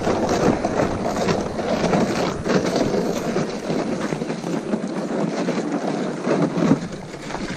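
Footsteps crunching on thawing snow and grass while walking, with wind on the microphone.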